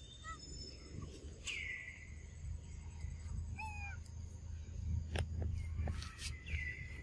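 Short high animal calls, a few quick chirps and two longer falling calls, over a steady low background. A few sharp clicks come about five to six seconds in.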